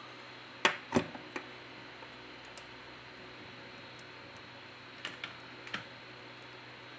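A few light clicks and taps of small tools and parts being handled during a smartphone's reassembly, three close together in the first second and a half and three more about five seconds in, over a faint steady hiss.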